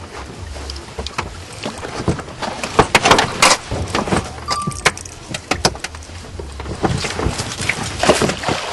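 Water splashing around an inflatable boat as a wet line is hauled in over the side, with a string of sharp knocks and clatters, densest about three seconds in and again near the end, over a low steady hum.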